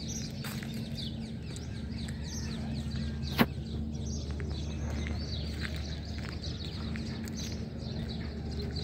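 Many small birds chirping in quick, short calls over a steady low hum, with one sharp click about three and a half seconds in.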